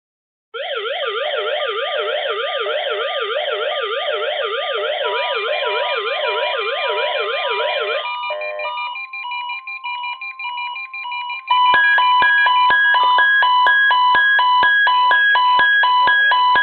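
Several weather radios sound their alert alarms together as they pick up the required weekly test. First comes a fast warbling, siren-like tone. About eight seconds in it gives way to broken beeping, and from about eleven seconds on there are loud repeated beeps at about two per second.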